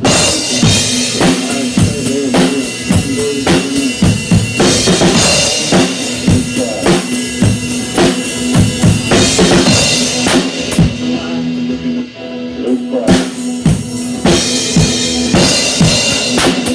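Band music driven by a drum kit, with bass drum and snare on a steady beat over a sustained note; the sound thins out briefly about eleven seconds in, then the full band returns.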